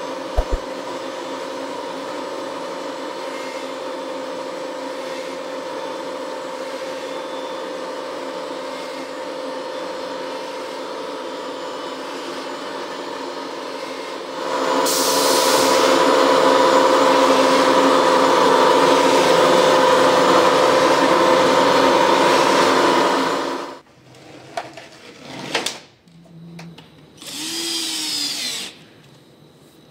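A vacuum membrane press running with a steady machine hum. About halfway through it gets louder and harsher, then cuts off suddenly. Near the end, a cordless drill drives screws through a steel mounting bracket in two short whirring runs, speeding up and slowing down.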